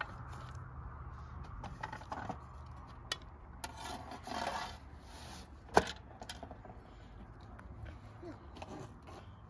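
Long thin wooden rolling pin working flatbread dough on a round wooden board: soft scraping and rubbing with a few sharp wooden knocks, the loudest about six seconds in.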